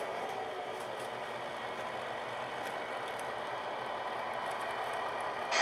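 Tamiya MFC-03 sound unit in a 1/14 RC Volvo FH16 tow truck playing its simulated diesel truck engine sound through the model's speaker while the truck drives, steady throughout. A sudden louder sound comes in right at the end.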